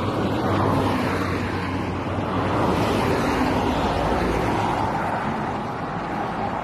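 Cars driving past on a road, a rushing of tyres and engines that swells in the first second and eases off near the end.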